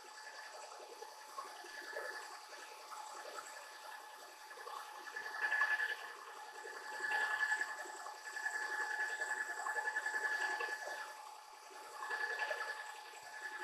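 Milling cutter roughing out a steel press brake die on a planer mill, with a hiss of coolant mist spraying at the cut. A steady high ringing tone from the cut rises and falls in loudness several times.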